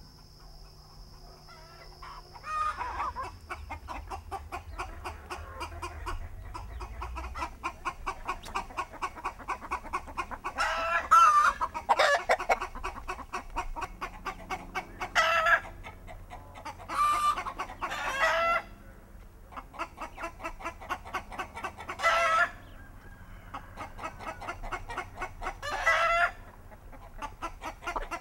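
A flock of hens and roosters clucking in a rapid, continuous patter. Louder, longer calls break out about five times over it.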